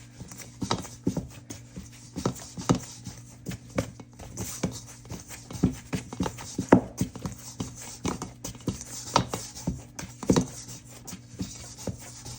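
Fried-bake dough being kneaded by hand, with repeated irregular thuds and slaps about once or twice a second over a steady low hum.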